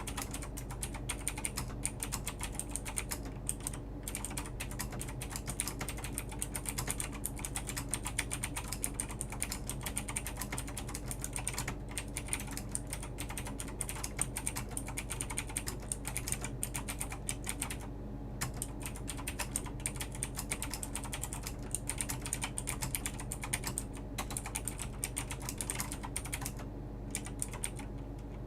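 Clicky blue (Cherry MX Blue-clone) switches on a LESHP mechanical keyboard being typed on quickly and steadily, a rapid run of key clicks with a few brief pauses, over a faint steady low hum.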